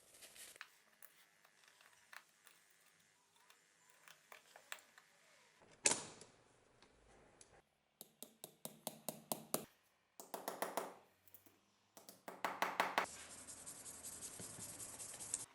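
Workshop handwork on a small object in short edited bursts: scattered clicks and a sharp knock, then runs of quick rasping strokes about six a second, and a steady hiss that cuts off suddenly at the end.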